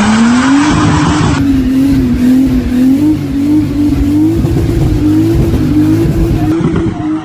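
An engine running loudly at fairly steady revs, its pitch wavering slightly up and down.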